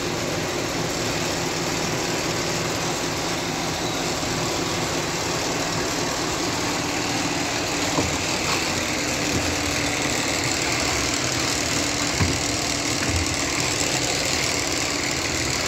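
Steady machine-like running noise with a faint low hum, and a few light knocks.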